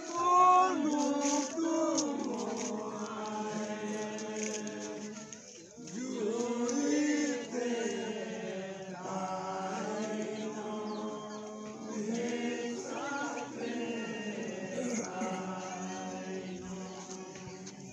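Voices singing a chant-like folk song in long phrases, with a brief pause about five and a half seconds in.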